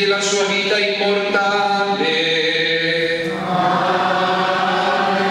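A priest chanting the solemn Easter blessing in Italian, a single male voice singing long held notes on a reciting tone that shift in pitch about two seconds in and again just past three seconds.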